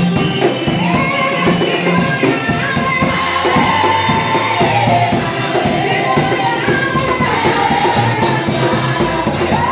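Gospel-style group singing over a band, with voices carrying a melody above steady drums and low bass notes.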